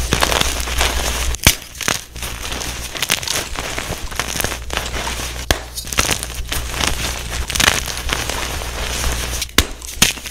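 Blocks of blue-dyed and plain gym chalk crushed and crumbled between the hands: a continuous dry crunching and crackling, with a few sharp clicks.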